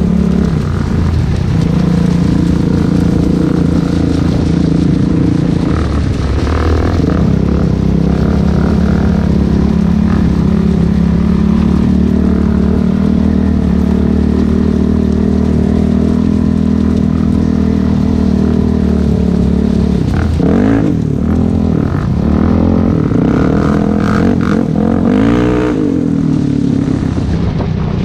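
Sport quad's 400cc single-cylinder four-stroke engine running at a steady cruise, heard from on board. The engine note dips briefly about six seconds in and rises and falls several times with throttle changes in the last third.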